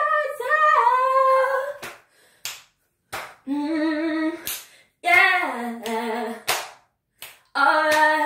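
A woman singing a cappella in short held phrases, with gaps between them, and sharp hand claps keeping the beat through the pauses and under the phrases.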